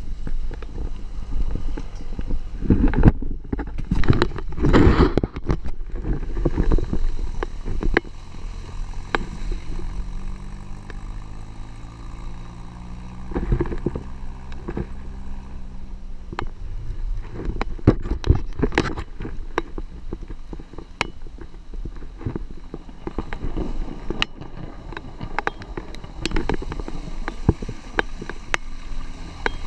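Off-road 4x4 driving slowly over a rough dirt track: a steady low engine rumble, with its note rising and falling in the middle, and many knocks and rattles from the jolting body and suspension.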